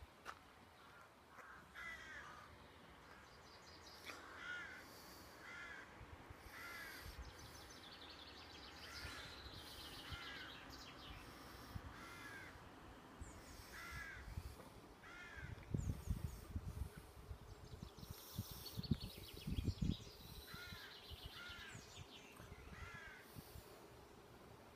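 Birds calling outdoors: short calls repeated every second or so, often in pairs, with fainter twittering higher up. A few low buffeting bumps on the microphone come in the second half.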